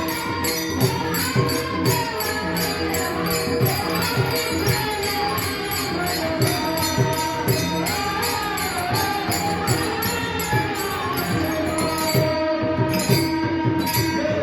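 Marathi devotional kirtan music: a melodic sung line over small hand cymbals jingling in a quick, steady beat of about three to four strokes a second.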